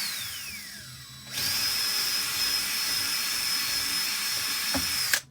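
Small high-speed power tool motor running with a high whine: it winds down in pitch at the start, starts up again about a second in, runs steadily for about four seconds and stops abruptly near the end.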